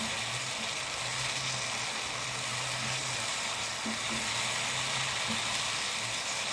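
Ground chilli paste with onions and garlic frying steadily in oil in a pan.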